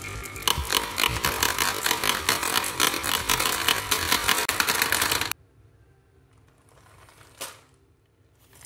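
Marbles rolling and clacking down a wavy wooden slope and dropping into a plastic toy dump truck's bed, a dense rapid clatter that stops abruptly about five seconds in. It is followed by quiet and a single click near the end.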